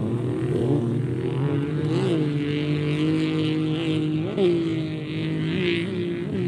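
Racing jet skis' engines running out on the water, a steady droning whine whose pitch jumps up briefly several times as throttles open.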